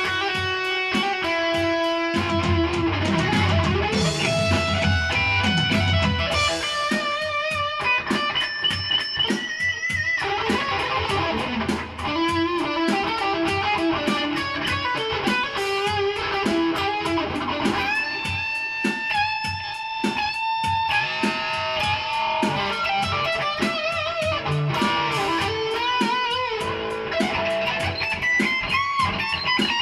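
Electric guitar played through a Boss Katana amp with an overdriven lead tone: improvised lead lines of note runs, bends and long sustained notes with wide vibrato.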